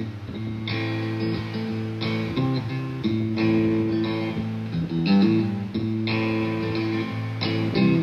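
Background music: held chords, struck afresh about every second.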